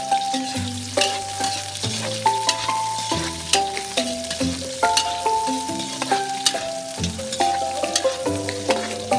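Garlic and onion sizzling in a wok as a spatula stirs and scrapes the pan, with sharp scraping clicks here and there. Background music with a melody and bass line plays throughout.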